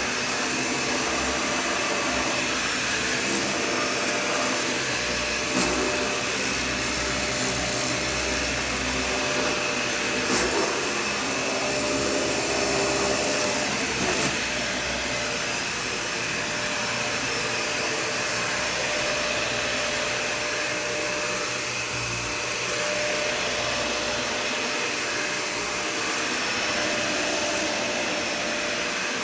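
Dyson Ball Total Clean (UP13) upright vacuum cleaner running steadily, with a steady high whine over its rushing airflow. A few brief clicks come through at about 6, 10 and 14 seconds in.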